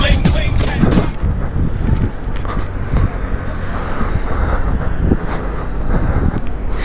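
Steady low rumble of motor vehicles on a street, with a few soft knocks.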